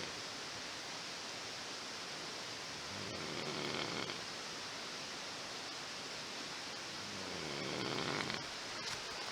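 Slow, regular snoring: one long snore about three seconds in and another about seven seconds in, over a steady hiss.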